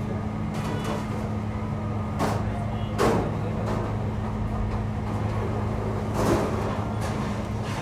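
Bakery machinery running with a steady low hum, with three short knocks or clatters spread through it.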